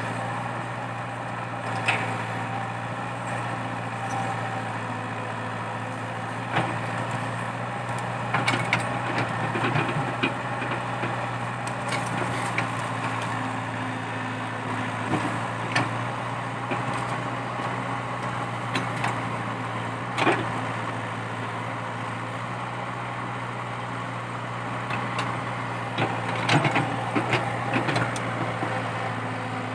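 Komatsu PC80 excavator's diesel engine running steadily, with scattered sharp knocks and cracks as the machine digs out a eucalyptus stump.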